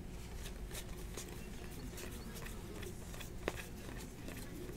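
A stack of Donruss basketball trading cards being flipped through and slid from hand to hand: light clicks and ticks of card stock, with one sharper click about three and a half seconds in.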